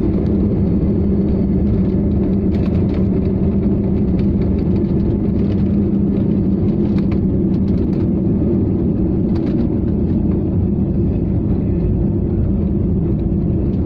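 Jet airliner cabin noise during the takeoff roll and liftoff: the engines at takeoff thrust and the runway rumble make a loud, steady roar with a constant low hum.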